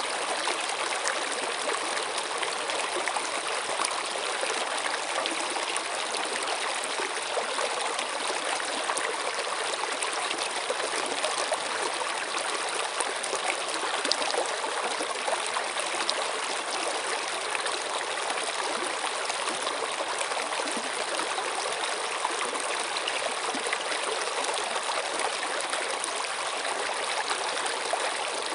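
Water running steadily in a stream, an even rushing with trickling and no breaks.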